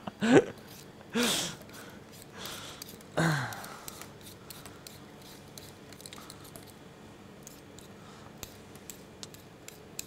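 A man laughs in short bursts during the first few seconds, the last one falling in pitch. After that comes the faint, irregular scraping of a hand vegetable peeler stripping the skin off a raw potato.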